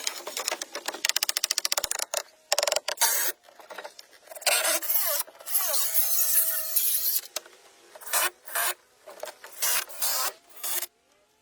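Wood being worked by hand tools: choppy scraping and rasping strokes with short knocks, and a quick run of clicks about a second in.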